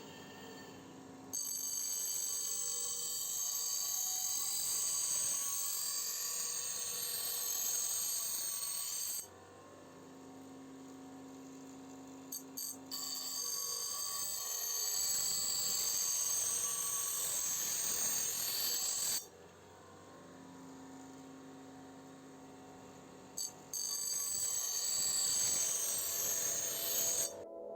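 Power tool grinding metal in three long stretches, each a high-pitched ringing hiss that starts and stops sharply, with a quieter steady hum between them.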